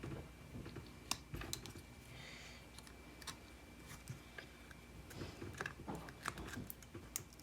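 Faint, scattered small clicks and light scrapes of a plastic pry pick working at a glued-down board inside an iPod Classic, with a brief scrape about two seconds in.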